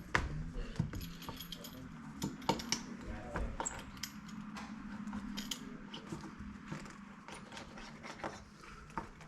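Irregular light clicks, taps and rattles of hands working a window screen frame and its mesh while the rubber spline is pressed into the frame's channel.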